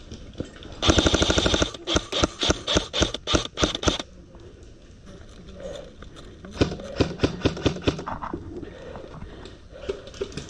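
Airsoft guns firing: a rapid full-auto burst about a second in, then a quick string of single shots, and another run of shots about two-thirds of the way through.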